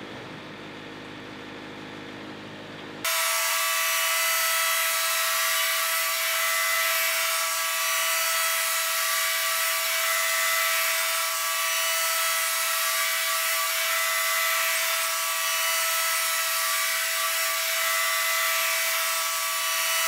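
Wood-Mizer portable band sawmill cutting through a timber: after about three seconds of a quieter low running sound, a loud steady whine with a hiss starts suddenly as the band blade goes into the wood, and holds evenly.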